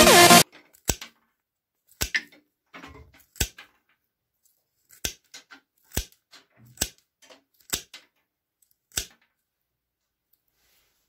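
Background music cuts off about half a second in, then restored hand snips cut through a twig and a thin rod, about eight sharp snaps spaced roughly a second apart.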